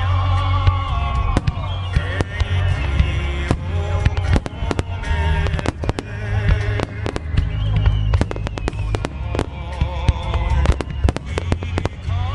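Aerial firework shells bursting in rapid succession, a dense run of sharp bangs that thickens from about four seconds in, over loud music with a singing voice.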